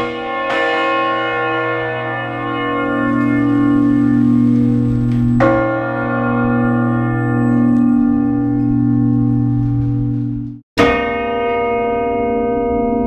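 Large bronze church bell swinging full circle (volteo), its clapper striking about every five seconds with a long ringing hum between strikes. Near the end the ringing cuts off abruptly and another bell strike starts at once.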